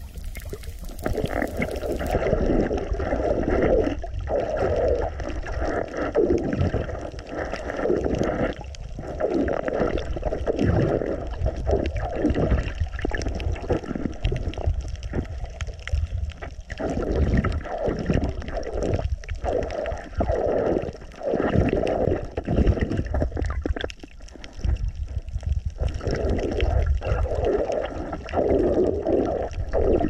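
Muffled underwater gurgling and sloshing of water around a submerged camera, rising and falling in irregular surges.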